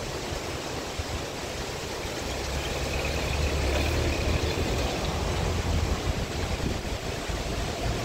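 A four-wheel-drive SUV drives slowly past at close range on a dirt track; its engine hum swells about two seconds in and fades out about six seconds in. Under it runs the steady rush of a fast mountain river.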